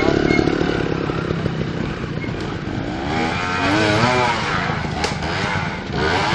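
Trials motorcycle engine revving hard, its pitch swinging up and down as the bike works up a steep rock climb. There is a sharp click about five seconds in.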